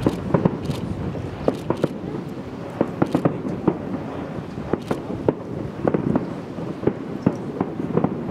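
Fireworks going off in irregular sharp bangs and cracks, often two or three in quick succession, over a steady low background rumble.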